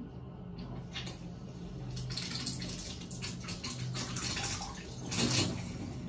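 Water running into a shallow-filled bathtub and splashing, in uneven surges that are loudest about five seconds in, over a low steady hum.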